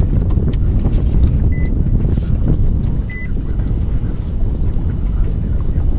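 Wind buffeting the microphone as a loud, uneven low rumble, with two short faint high beeps about a second and a half apart.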